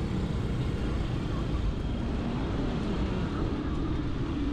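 Steady street traffic noise with a rough low rumble, heard from a moving bicycle, with no single event standing out.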